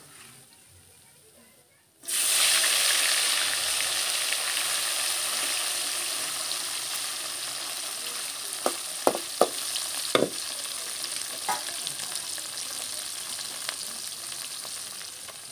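Small fish deep-frying in hot oil in a metal kadhai. A loud, steady sizzle starts suddenly about two seconds in and slowly dies down. A few sharp knocks of a perforated slotted spoon against the pan come a little past the middle.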